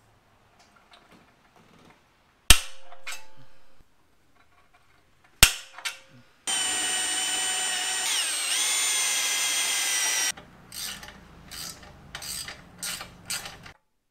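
Cordless drill running for about four seconds as it bores into the bike's metal frame, its whine sagging in pitch as the bit bites. Two sharp knocks come before it, and light clicks and scrapes follow.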